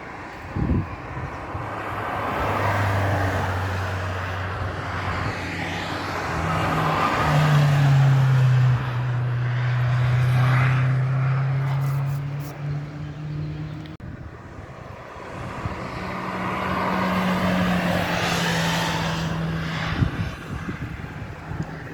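Historic racing cars passing on a hillclimb road, one after another, engines at full throttle. The first swells up and passes in the first half, with its engine note stepping in pitch as it shifts gear. The second follows in the latter half.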